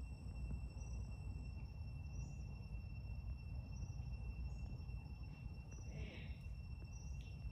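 Crickets and other forest insects calling in a steady, high-pitched chorus over a low background rumble, with a short higher call about six seconds in.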